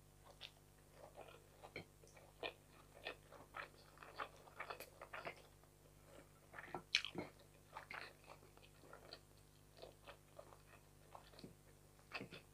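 Close-up mouth sounds of a person chewing fried fish and rice: short, irregular wet clicks and smacks, with one louder smack about seven seconds in.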